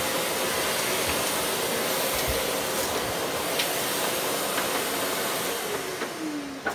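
An electric motor runs steadily with an even, airy hiss, then winds down with a falling pitch near the end.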